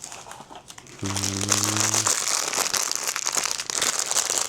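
Pop Mart blind-box packaging being opened by hand: a quiet start, then about a second in, dense crinkling and crackling of the wrapping that runs on, with many small clicks. A brief steady hum, about a second long, sounds over the start of the crinkling.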